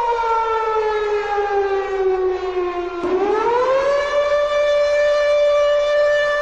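A siren-like wailing tone. It slides slowly down in pitch for about three seconds, then swoops back up and holds steady.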